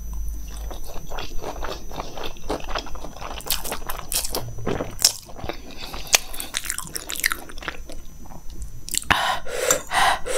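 A person chewing a mouthful of hakka noodles and macaroni, close-miked. It is a steady run of small wet clicks and smacks, with a few louder mouth noises near the end.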